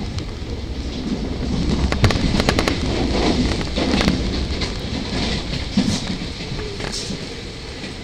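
Running noise of a Tobu 50000 series electric train heard from inside the carriage, with a rapid run of sharp clacks from the wheels over rail joints or points about two seconds in and a few single clacks later, as another train passes close alongside.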